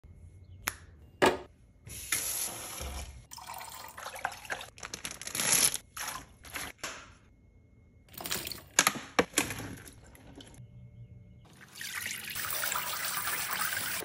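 Kitchen faucet running into a sink while produce is rinsed, in short stretches that start and stop abruptly, with sharp clicks and knocks of handling in between. The tap runs steadily over the last few seconds.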